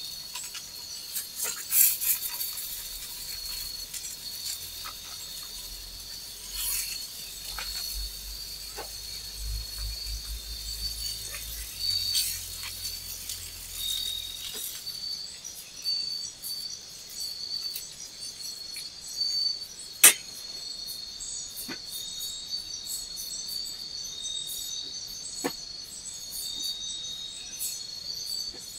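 Forest insect chorus making a steady high-pitched drone, with scattered faint clicks and one sharp click about two-thirds of the way through.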